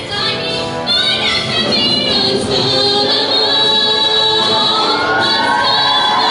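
Show choir singing a song together, many voices in harmony, holding long notes in the second half with a voice line sliding upward near the end.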